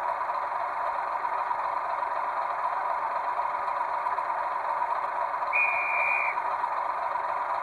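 Sound-fitted 00 gauge model diesel locomotive idling through its small onboard speaker, a steady engine drone. A short, steady high tone of under a second comes a little over halfway through.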